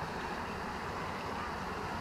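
Steady outdoor background noise, an even low rush with no distinct event.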